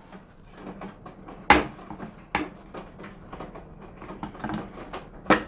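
Hands handling the opened plastic remote controller and its wiring: scattered small plastic clicks and taps, with three sharper clicks, the loudest about a second and a half in.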